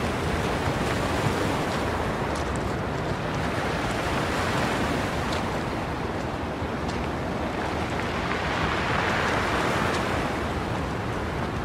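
Steady rushing noise of surf and wind, with no speech or music, swelling a little near the end.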